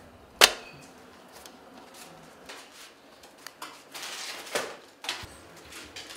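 A baker working at a Georgian tone, a clay pit oven for bread: one sharp slap about half a second in, the loudest sound, then scattered light knocks and short scrapes, with two brief scraping rushes a little after four and five seconds in.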